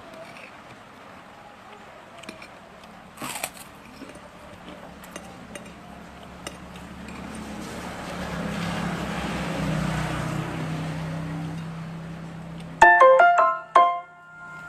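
A vehicle's low engine hum swells and fades as it passes. Near the end, a loud, short run of stepped electronic tones plays and stops abruptly.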